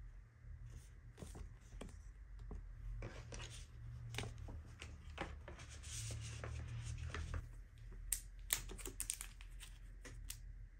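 Sticker sheets and paper album inserts being handled and shuffled, rustling and scraping, with a cluster of sharp crinkles and clicks near the end as a photocard in a clear plastic sleeve is picked up.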